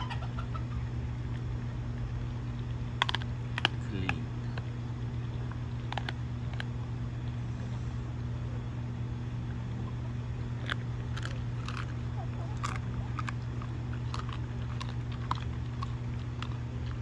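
A Doberman chewing a whole raw squirrel, its teeth crunching through bone in scattered clusters of sharp crunches with pauses between. A steady low hum runs underneath.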